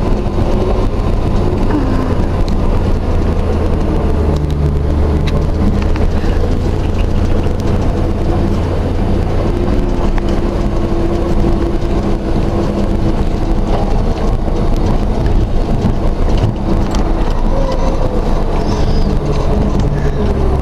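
Truck engine running steadily with a deep drone and an engine note that wavers a little, while hauling a skidded log.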